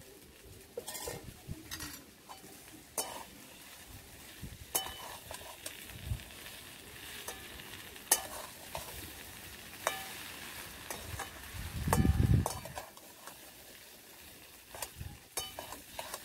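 A metal spatula stirring and scraping in a metal wok of frying spice paste and potatoes, with sharp scrapes and clicks every second or two over a steady faint sizzle. A louder low rumble about twelve seconds in.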